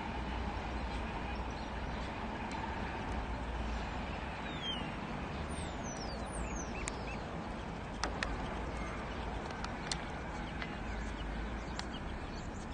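Pacific National NR class diesel-electric locomotive running light engine, its diesel giving a steady low rumble. A few high, falling bird chirps come about halfway through.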